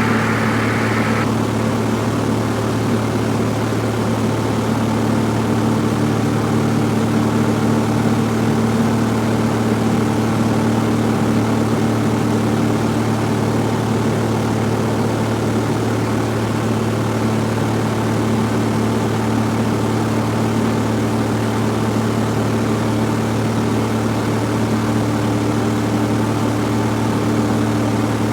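Cessna 172F's engine and propeller droning steadily in cruise flight, heard from inside the cabin.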